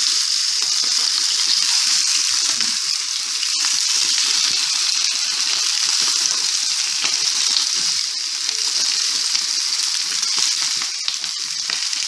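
Raw skin-on chicken pieces sizzling as they are laid into hot olive oil in a frying pan alongside spring onion stalks and garlic: a steady high hiss with light crackling.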